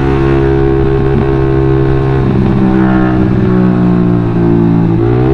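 Suzuki GSX-R150's single-cylinder engine running hard through a WRX GP5K1 aftermarket full-system exhaust while the bike is ridden. Its pitch eases down slightly as the bike slows, then climbs again near the end as it picks up revs.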